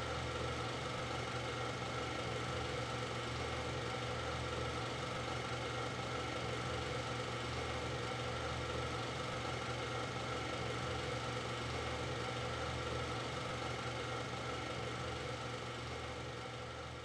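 Steady low hum of several held tones, fading out near the end.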